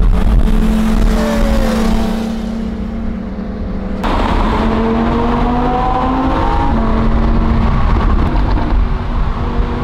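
Lamborghini Huracán's V10 engine heard from inside the cabin at highway speed, over steady road noise. The sound changes abruptly about four seconds in, and from there the engine note climbs in pitch as the car accelerates.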